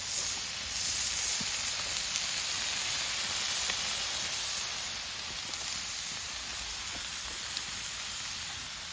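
Miyazaki beef sizzling steadily on a fire-pit grill grate, a loud continuous hiss with a few faint pops.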